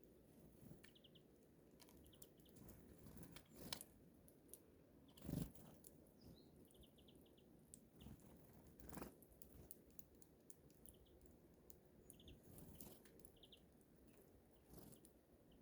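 Small birds at a seed feeder: faint scattered taps and crunches of pecking and seed-cracking, the loudest knock a little over five seconds in, with short high chirps in quick groups of three or four now and then.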